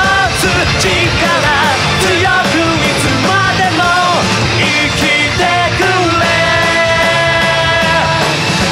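Live rock band performing: male vocals singing over electric guitars, bass and drums with crashing cymbals, the singer holding one long note near the end.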